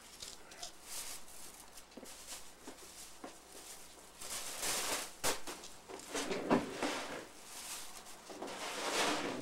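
Rustling and handling noises with scattered light knocks and clicks, louder in several stretches in the second half, as a person handles a plastic bag and moves a cat tunnel.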